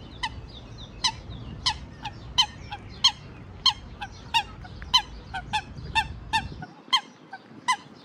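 A water bird giving about a dozen short, sharp calls, one or two a second, over a low rumble that cuts out near the end.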